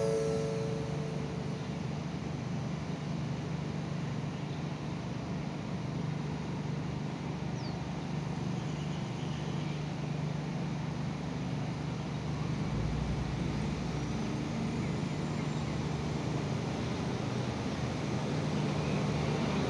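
Diesel railcar's engine running with a steady low drone as the train rolls slowly into the station, growing a little louder near the end as it draws up to the platform.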